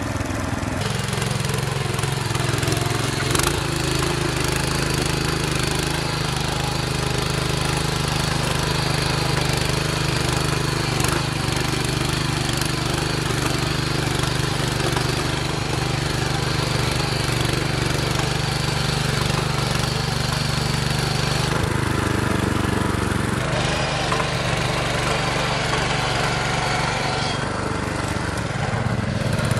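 RURIS 731K ACC power tiller engine running steadily under load while pulling a plow through the soil. Its note shifts about a second in and again a little over 20 seconds in.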